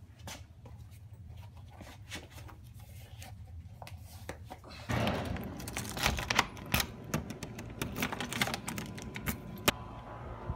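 Keys jangling on a key ring while a deadbolt is locked with a key: a run of sharp clicks and rattles that starts about halfway through, after quieter shuffling and light taps.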